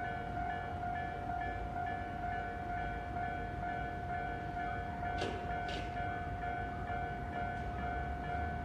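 Japanese level-crossing warning bell ringing, pulsing about twice a second, over the low rumble of a train on the line. There are two short hisses just past the middle.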